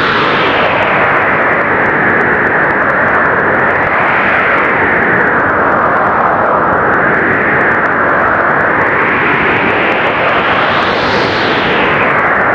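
Blizzard wind blowing hard and steadily, rising and falling in slow gusts every few seconds, with the strongest gust near the end.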